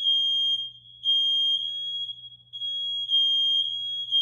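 Smoke detector alarm sounding a high-pitched tone in blasts of one to two seconds with short breaks between them. It has been set off by smoke from upstairs.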